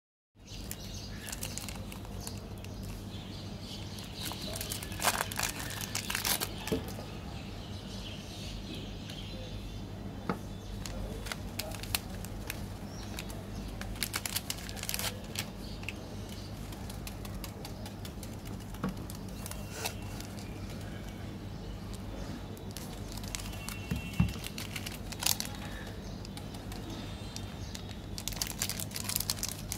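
Plastic candy-bar wrappers crinkling and tearing as they are handled and opened, in scattered bursts of crackle, over a steady low hum.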